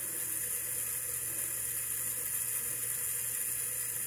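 Steady high hiss that stays even throughout, with no distinct events.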